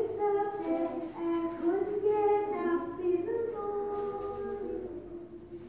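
A woman singing a simple song in held notes, with small hand shakers rattling in rhythm along with her.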